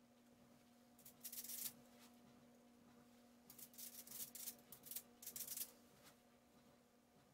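Scratchy strokes of a stiff oil-paint brush's bristles: one short burst about a second in, then a run of quick strokes in the middle, over a faint steady hum.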